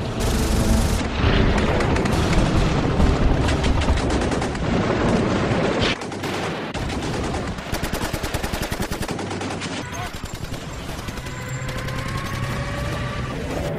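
Battle sound effects: dense gunfire over a heavy rumble, with a long rapid rattle of machine-gun fire in the middle. A faint tone rises slowly near the end.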